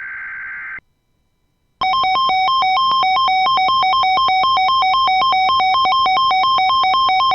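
Emergency Alert System broadcast tones: a short screeching data burst, then about a second of silence. Then a loud two-tone attention signal begins, warbling rapidly between a higher and a lower pitch about four times a second.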